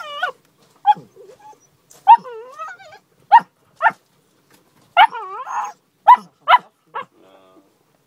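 Leonberger puppies yapping in short, high, sharp calls, about nine in all, two of them drawn out into a wavering whine.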